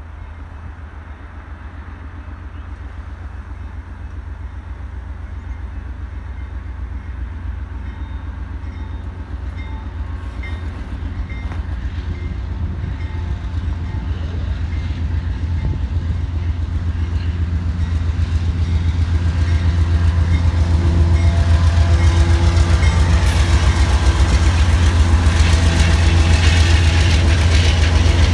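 Freight train at a road crossing, its low diesel hum growing steadily louder as it approaches, then the rumble and clatter of freight cars rolling through over the last several seconds. A crossing warning bell dings evenly throughout.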